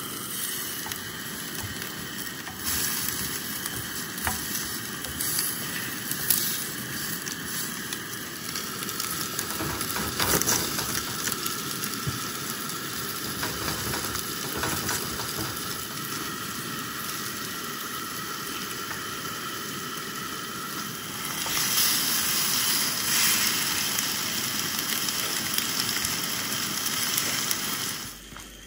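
Steaks and rissoles sizzling on a two-burner camp stove's hotplate, a steady frying hiss with a kettle boiling beside them. A few sharp knocks of a knife chopping an onion on a board come through the middle, and the sizzle swells louder for a couple of seconds near the end.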